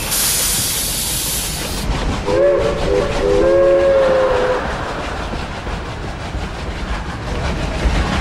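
Steam locomotive letting off a loud hiss of steam, then its steam whistle blowing twice, a short toot and then a longer blast, over the low rumble of the engine.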